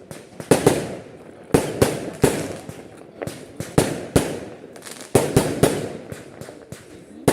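Fireworks going off in quick succession: about a dozen sharp bangs, irregularly spaced, each trailing off in a short echoing crackle.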